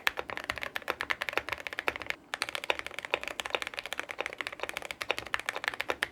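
Fast typing on a mechanical keyboard fitted with thocky switches, a sound test comparing WS Morandi and Gateron Oil King switches. The typing is a rapid run of keystrokes that breaks off briefly about two seconds in, then resumes.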